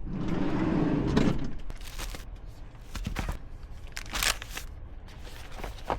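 Rustling and crinkling, like packaging or a bag being handled, for about the first second and a half, then scattered light clicks and knocks.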